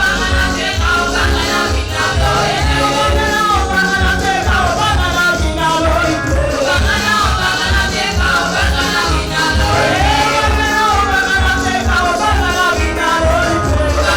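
Live gospel praise-and-worship music: voices singing a melody over a steady driving bass beat.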